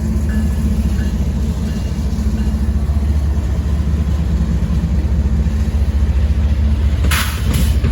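Freight locomotive's diesel engine running as the train passes, a loud steady low rumble with an even pulse. Near the end, two short bursts of hiss.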